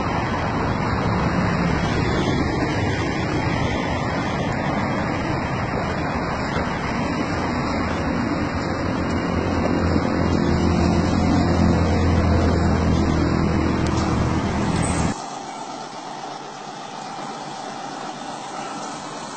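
Heavy truck's engine and road noise as it hauls a lowboy trailer along the road, with the rumble growing louder a few seconds before the end of the clip. About fifteen seconds in, the sound cuts abruptly to a much quieter steady hiss.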